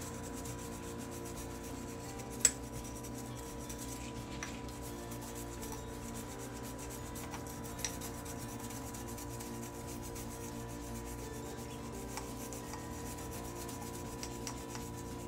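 Small brush scrubbing an engraved silver kumkum holder, the bristles rasping steadily against the metal to work tarnish out of the crevices. A sharp click about two and a half seconds in and a smaller one near eight seconds.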